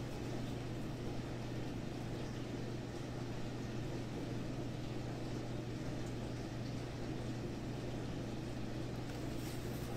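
A steady mechanical hum with a low drone, unchanging throughout.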